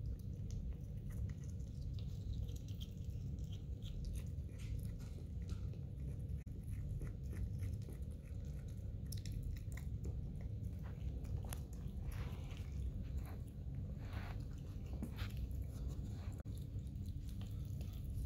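A pet striped skunk chewing and biting its food, mostly pieces of chicken, heard as small irregular wet clicks that grow busier in the second half. A steady low rumble runs underneath.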